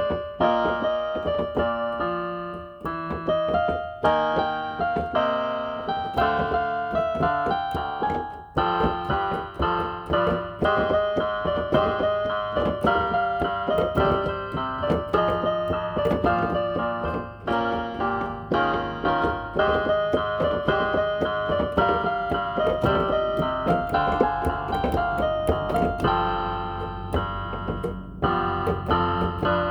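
Inexpensive electronic keyboard played with a piano voice: a melody over chords, played steadily by a self-taught beginner.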